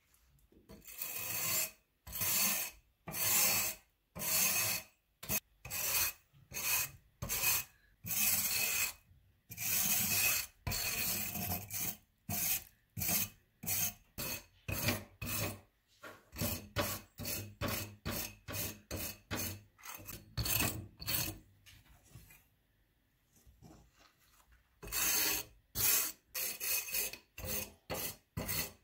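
Thick wire brush scrubbing flaky rust off an old steel sword blade by hand, a rasping back-and-forth scrape. The strokes are long at first and become shorter and quicker past the middle. They stop for a couple of seconds near the end, then resume.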